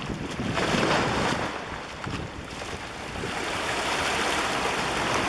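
Ocean surf breaking and washing onto a beach: a wave surges in a little after half a second, recedes, and another builds through the second half. Some wind noise on the microphone.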